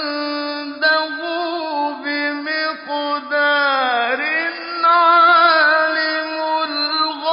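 A man's voice chanting Quran recitation in slow, melodic tajweed style, holding long drawn-out notes with small wavering ornaments. About halfway through, one note glides down in pitch and climbs back up.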